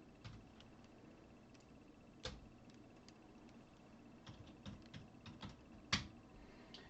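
Sparse, faint clicking of computer keys, a few isolated clicks with the two loudest about two and six seconds in.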